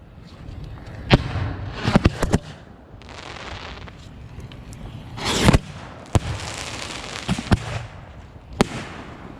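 Fireworks going off: a string of sharp bangs, several in quick succession about two seconds in and the loudest one about five and a half seconds in, with crackling hiss between the reports.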